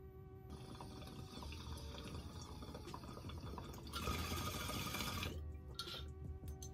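Water bubbling in a large glass bong as smoke is drawn through it, with a louder, harsher stretch of about a second from around four seconds in.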